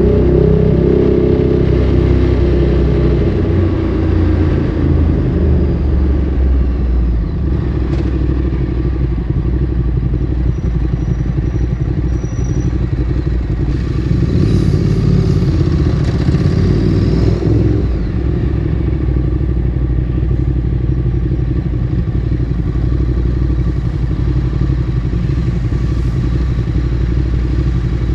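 Ducati Streetfighter 848's L-twin engine through a Termignoni exhaust, heard from the rider's seat. The revs fall at the start as the throttle closes, then it runs steadily at low revs, with a brief rise in revs about halfway through before settling back.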